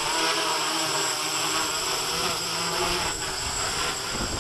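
Q450 quadcopter's propellers and brushless motors whirring as it hovers low, the pitch wavering up and down as the motors hold it against gusts. Wind buffets the microphone with a low rumble that grows stronger about three seconds in.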